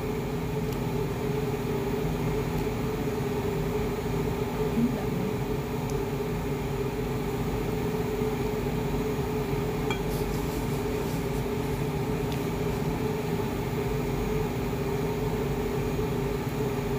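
A steady mechanical hum from a room appliance runs throughout. Now and then a metal fork clinks and scrapes against a ceramic bowl.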